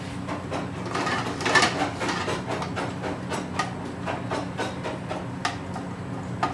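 A long metal chef's spoon knocking and scraping against an aluminium frying pan, stirring whole spices frying in hot vegetable ghee: a run of uneven clicks and taps with a light sizzle, busiest about one to two seconds in. A steady low hum runs underneath.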